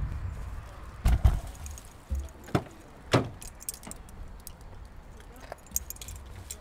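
Keys jingling and clinking, with a few sharp knocks in the first three seconds or so.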